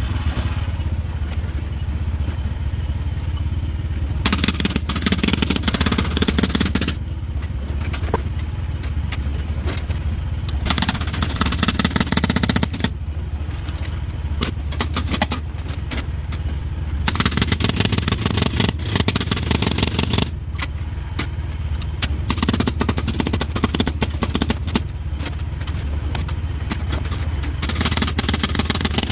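Mini excavator's hydraulic rock breaker hammering on a shelf rock in several bursts of a few seconds each, a rapid stream of impacts, trying to split the rock. The excavator's engine runs steadily underneath.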